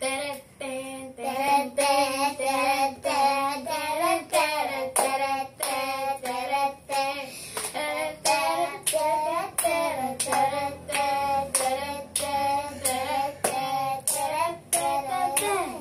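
Children singing a song together while clapping their hands in time, about two claps a second.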